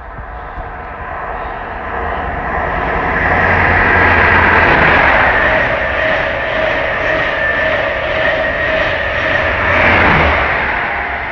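InterCity 125 High Speed Train with two diesel power cars passing through the station at speed, not stopping. It grows louder as the leading power car approaches, with a steady high whine over the rush of the wheels on the rails, and there is a second surge about ten seconds in as the rear power car passes close by.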